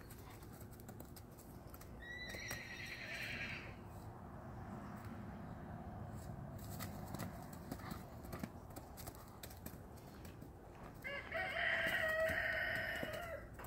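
Two drawn-out animal calls: a short high one about two seconds in, and a longer, lower, wavering one near the end, with a few scattered knocks between them.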